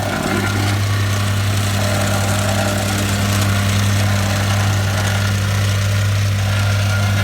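An engine running steadily at constant speed, with a deep, even hum.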